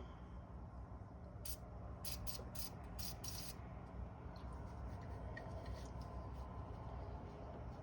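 Faint work noise: a few short clicks, bunched in the first half, over a steady low hum.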